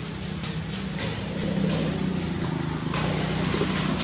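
A motor engine running steadily: a low hum under a broad rushing noise, a little louder from about a second in.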